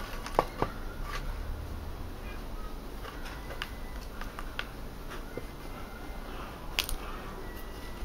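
Pre-soaked willow rods rustling and clicking as hands work them on a wooden block jig, with scattered sharp ticks: two loud ones shortly after the start and another near the end.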